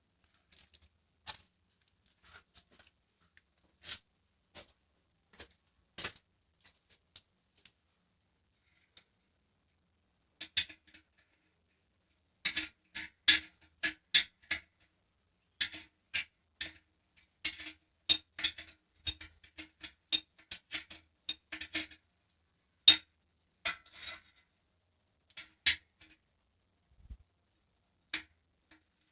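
Scattered light metallic clicks and clinks of metal parts being handled, sparse at first, then coming thick and fast through the middle before thinning out again.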